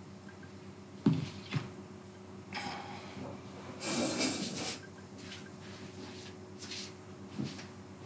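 Computer keyboard keys clicking as code is typed, with two sharper clicks about a second in and scattered fainter ticks after. About four seconds in there is a louder rustling noise lasting most of a second. A faint steady hum lies underneath.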